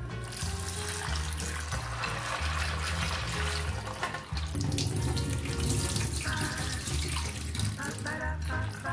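Kitchen tap running water into a sink, with background music underneath.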